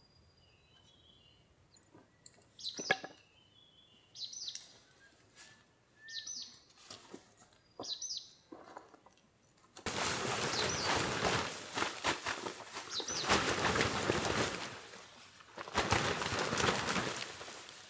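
Small birds chirping in short, high calls. About ten seconds in, a loud crackling rustle starts and drowns them out; it pauses briefly and then starts again.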